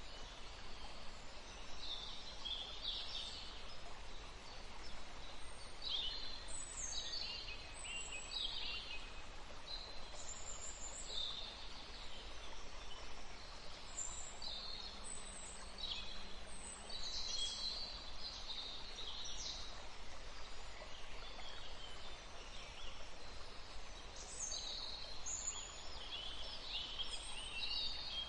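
Small birds chirping and trilling in short, high-pitched calls, many overlapping throughout, over a steady background noise.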